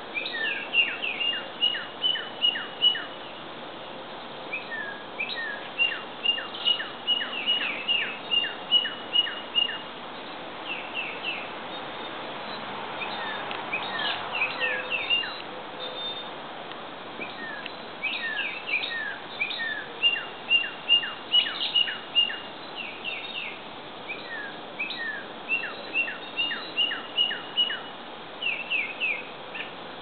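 Songbirds whistling in the trees: repeated phrases of quick, high notes, many of them short falling sweeps, each phrase lasting a few seconds with brief pauses between.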